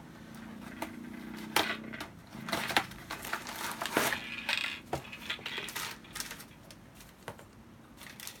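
A cardboard box being opened and its contents slid out in a clear plastic bag: scraping, sharp clicks and rustling of cardboard and plastic packaging, busiest in the first half and quieter near the end.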